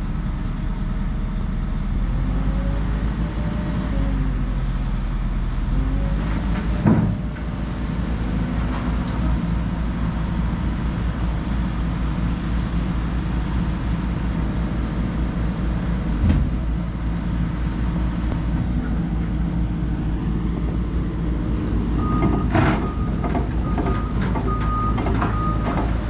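Hyundai HX140AL excavator's diesel engine running steadily under hydraulic load, with a few sharp metal clunks. Near the end its travel alarm beeps.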